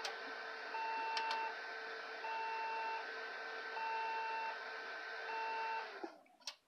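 HP Compaq desktop tower powered on, its motherboard speaker sounding long beeps over and over (each about three-quarters of a second, with equal gaps) over the steady whir of its cooling fans. Endlessly repeating long beeps at start-up are the BIOS error pattern typical of missing or undetected memory, and this tower's memory slots are empty. The fans and beeping stop about six seconds in, followed by a click.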